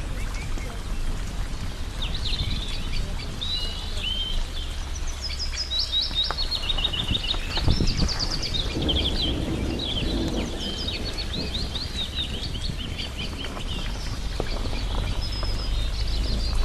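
Small songbirds chirping and twittering in quick, high trilled phrases, several overlapping, over a steady low rumble.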